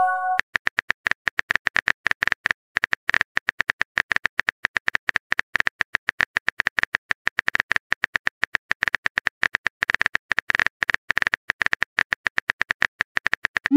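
Phone-keyboard typing clicks from a texting app's sound effect: many quick, irregular taps, several a second, as a message is typed out letter by letter. A short chime sounds right at the start, and a rising swoop begins just at the end.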